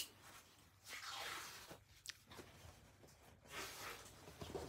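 Faint rustling of the fabric harness straps and seat pad of a baby swing as they are handled, with a sharp plastic click about two seconds in as the harness buckle is fastened.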